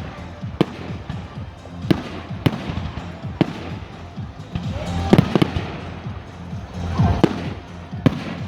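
Display fireworks going off: about ten sharp bangs at uneven intervals, with a quick cluster of several about halfway through and a couple more near the end.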